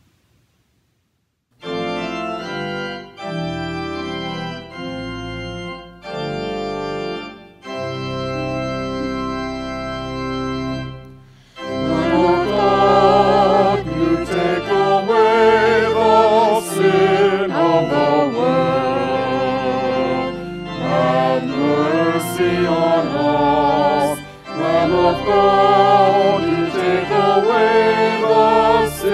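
Organ playing held chords, then, from about twelve seconds in, voices singing a hymn with the organ accompanying.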